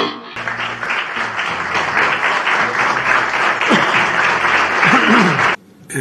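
Audience applauding steadily, with a voice or two calling out near the end; the applause cuts off suddenly a little before the end.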